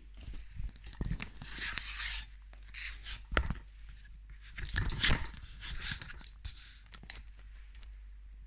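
Rustling and scraping handling noise in irregular bursts, with scattered clicks, as the recording phone is moved about and brushes against clothing.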